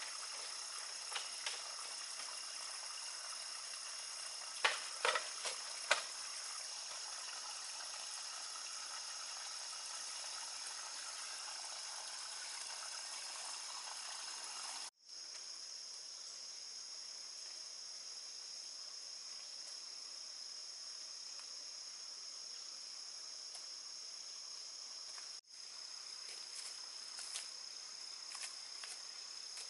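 Insects chirring in a steady high-pitched drone, with a few sharp knocks about five seconds in.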